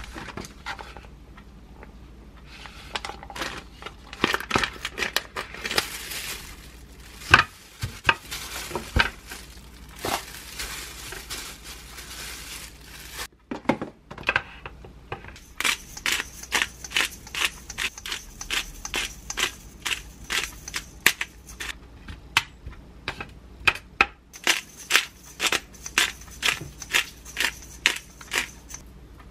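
Plastic packaging around raw pork crinkling and tearing as it is opened. Later, a handheld pepper grinder clicks rapidly, about three clicks a second, in two runs with a short pause between.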